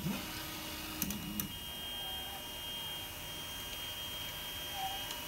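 Anet A8 Prusa i3 3D printer's stepper motors driving the axes to home: short rising motor whines at the start and again about a second in, with a few sharp clicks, over a steady high-pitched whine.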